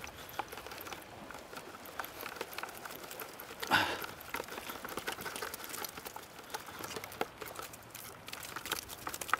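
Rustling and small clicks of a collapsible net crab trap being shaken and worked by gloved hands over a plastic bucket as the catch is emptied out, with one louder rustling knock about four seconds in.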